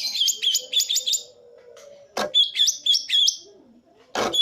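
Green leafbird (cucak ijo) singing its 'tembakan' song: fast runs of sharp repeated high notes, about six a second, in two runs of roughly a second each. Two sharp knocks come between and after the runs.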